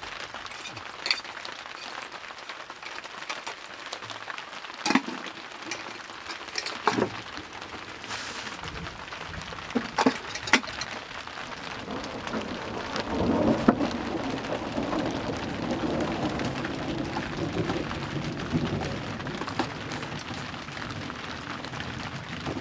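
Cooking at a wood-fire hearth: a steady hiss with several sharp metal clinks of pots and a lid. About 13 seconds in, water is poured from a mug into a pot, and a louder, steady rushing sound follows.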